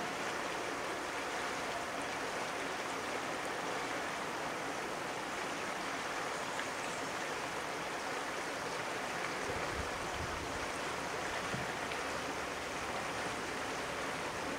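Flowing river water: a steady, even rushing of current over rocks.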